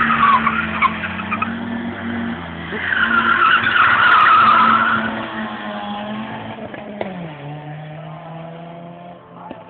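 A drifting car: tyres squealing over a steady engine note, the squeal loudest about three to five seconds in and then fading, with the engine dropping lower about seven seconds in.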